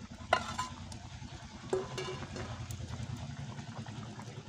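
Metal spatula clinking and scraping against a frying pan and an aluminium pot as pieces of fried fish are pushed off the pan into the curry, with a sharp clink just after the start and another about a second and a half later, over a steady low hum.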